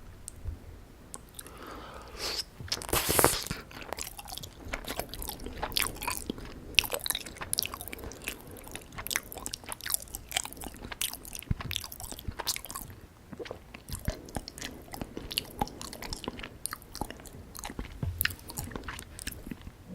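Close-miked chewing and wet mouth sounds of someone eating syrup-soaked gulab jamun: many short smacks and clicks, with a louder wet burst about three seconds in.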